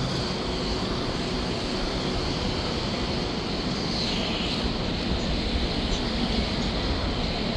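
Steady low rumble of street traffic noise, with no distinct events standing out.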